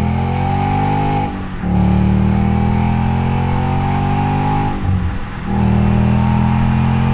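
Ford Mustang GT's 5.0 L V8 heard through a Flowmaster American Thunder axle-back exhaust with a chambered Super 44 muffler, accelerating under way. The note climbs steadily in pitch, broken by two short drops in pitch and level, about a second and a half in and again about five seconds in, that sound like upshifts.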